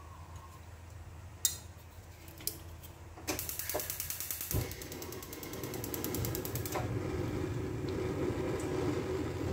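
Rapid plastic ratcheting clicks for a few seconds, as the screw cap of a cooking-oil bottle is twisted open. A low, steady hum then comes in and grows slowly louder.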